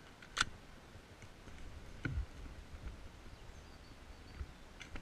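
A sharp click about half a second in, then a second click with a dull thud about two seconds in, over soft low thuds of steps on dry ground, and a few faint clicks near the end.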